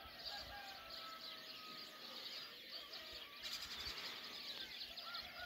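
Dawn chorus of many small birds chirping and singing, with a distant rooster crowing in long drawn-out calls, once near the start and again near the end.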